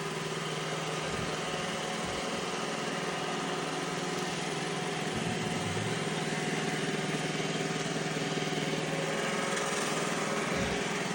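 Robot vacuum running, its motor and brushes giving a steady whirring hum.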